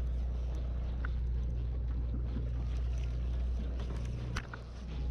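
Steady low hum of a fishing boat's onboard machinery, with a few faint clicks. A sharp click comes about four seconds in, and the hum dips briefly after it.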